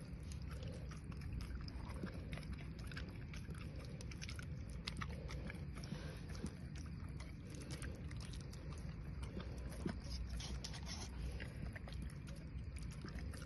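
A dog chewing soft wet food of rice and meat from a metal bowl and a hand: faint, irregular wet chewing clicks over a steady low hum.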